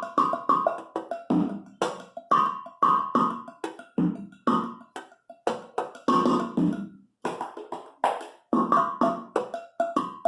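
Improvised household percussion: pots, pans, a bucket and lids struck by hand in a steady rhythm, about two to three hits a second, the metal ringing briefly after many of the hits.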